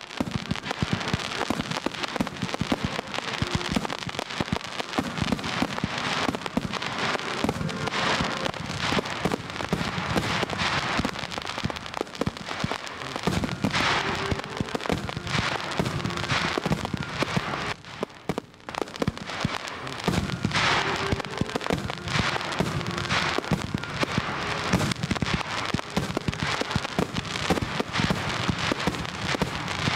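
Aerial fireworks display: dense crackling and popping of bursting shells, with louder bursts every couple of seconds and a brief lull about eighteen seconds in.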